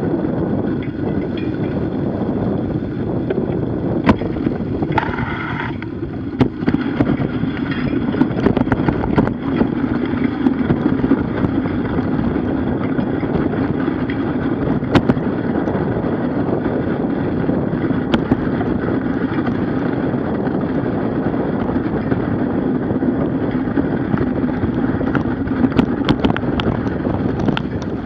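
Bicycle's knobby tyre rolling over ice, packed snow and slush, a steady rumbling hiss with wind on the microphone and scattered sharp clicks and crunches. A brief higher whine comes about five seconds in.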